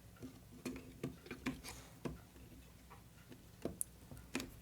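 Faint, irregular light clicks and taps of small wooden kit pieces being handled and pressed together, with a sharper click near the end.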